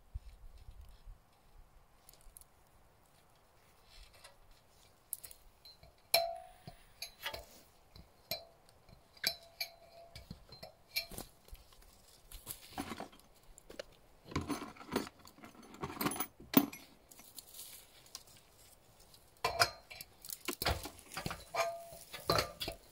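Metal objects clinking and knocking irregularly, a few strikes ringing briefly. It starts about five seconds in and gets busier in the second half.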